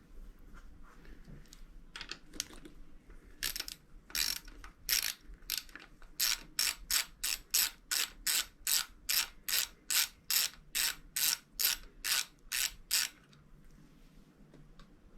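Ratchet clicking through short strokes, first a few slow and uneven ones, then a quick, even run of about three strokes a second that stops near the end. It is loosening the screws that hold the motorcycle's throttle-side control housing.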